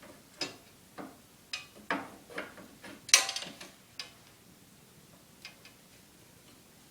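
Paramotor cage poles being fitted into the frame: irregular light knocks and clicks over about four seconds, the loudest a sharp clack about three seconds in.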